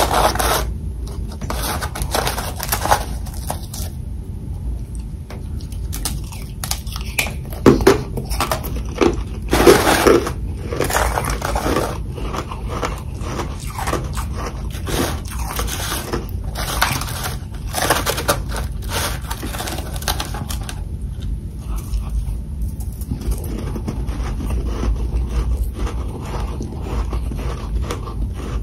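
Close-miked crunching and chewing of hard frozen ice and freezer frost in the mouth: irregular sharp bites and crunches, loudest around eight and ten seconds in, then quicker, steadier chewing over the last several seconds.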